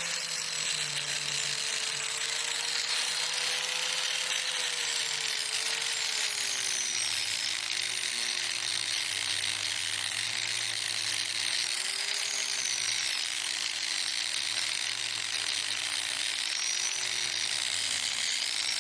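Harbor Freight angle grinder with a heavy disc, running steadily and grinding into a wooden tree stump. Its motor whine drops in pitch about six seconds in and sags briefly a couple more times as the disc is pressed into the wood.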